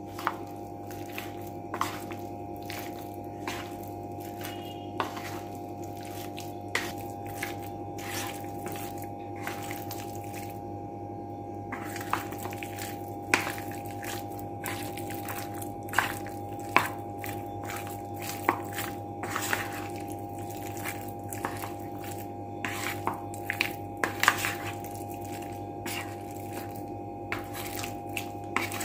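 A spoon stirring wet, marinade-coated chicken pieces in a bowl: a wet squelching with irregular clicks and taps of the spoon against the bowl, over a steady low hum.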